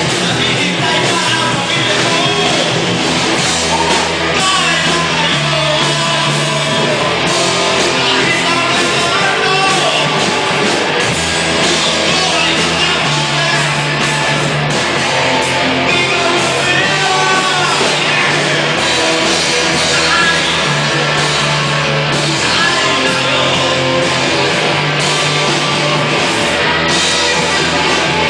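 Rock song with singing over a bass line that changes note every second or two.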